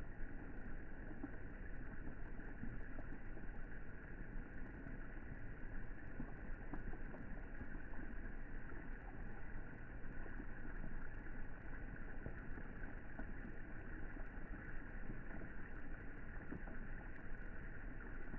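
Rain falling on the water of a swimming pool: a steady, even noise with faint scattered ticks of individual drops.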